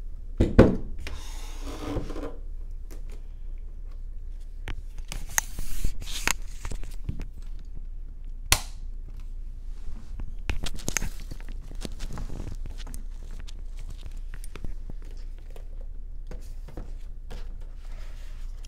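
Irregular knocks, clunks and short rustles of things being handled and set down on a tabletop. The loudest is a heavy plastic clunk about half a second in, as the Cinch binding machine is lifted and moved.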